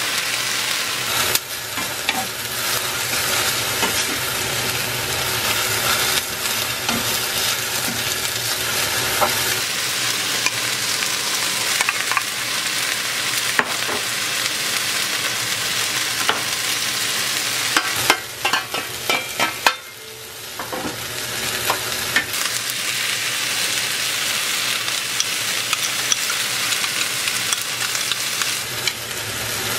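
Bean sprouts and squid sizzling in a hot wok over a gas flame, stirred with a wooden spatula scraping and tapping the pan. A run of sharp knocks comes about 18 seconds in, then the sizzle dips briefly and builds back up.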